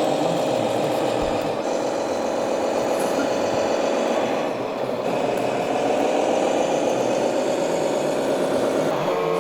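Small electric motors and gearboxes of radio-controlled model trucks and tractors whining steadily as they run, the pitch dipping about halfway through and then rising again.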